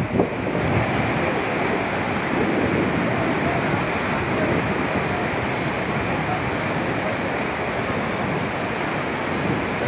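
Muddy floodwater of a swollen river rushing past a concrete embankment: a steady, unbroken rush of water.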